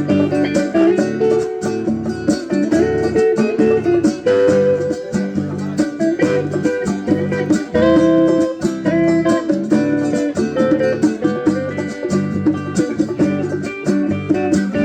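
Instrumental passage of a live band song: a drum kit keeping a quick, steady beat of hits under guitar and other pitched chords.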